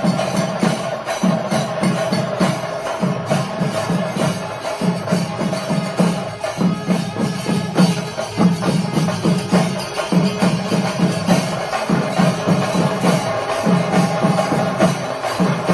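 Thayambaka: Kerala chenda drums beaten in fast, dense strokes that swell in pulses, with a steady metallic ringing from the elathalam hand cymbals keeping time.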